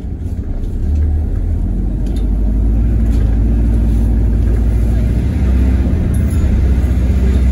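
Alexander Dennis Enviro400H hybrid double-decker bus under way, heard from inside the passenger cabin: a steady deep rumble of drivetrain and road noise that grows louder over the first second and then holds.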